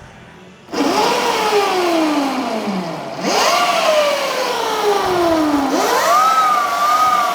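Eskute RTX electric dirt bike's motor and drive whining as the throttle is blipped three times: each time the pitch rises quickly as the rear wheel spins up and then falls slowly as it coasts down.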